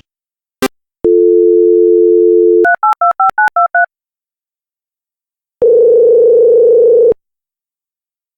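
Telephone sound effects: a click, then a steady dial tone, then about seven quick touch-tone keypad beeps as a number is dialled, and after a pause a single buzzy ring tone lasting about a second and a half.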